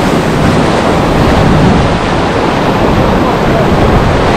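Surf washing over a rocky reef ledge, a loud steady rush of breaking and draining water, with wind rumbling on the microphone.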